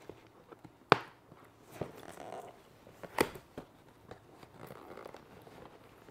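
Cardboard-and-plastic packaging of a boxed dress being handled and opened: soft rustling with two sharp snaps, about a second in and about three seconds in.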